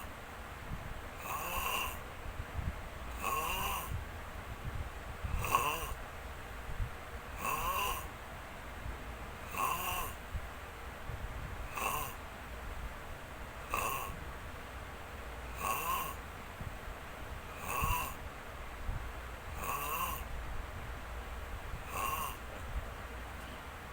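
Steady, rhythmic snoring, one snore about every two seconds.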